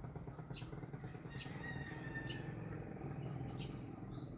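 Faint outdoor ambience: short high chirps about once a second, a brief thin whistle about a second and a half in, over a low steady rumble.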